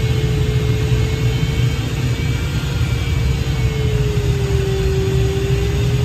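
Airflow rushing past the cockpit of a Grob Twin Astir glider: a steady low rumble of wind noise. A thin steady tone runs over it and dips slightly in pitch about four to five seconds in.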